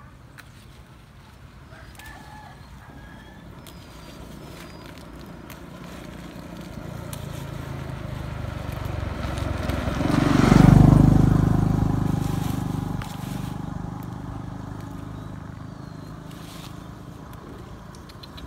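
A motor vehicle's engine passing by: it grows louder over several seconds, is loudest about eleven seconds in, then fades away.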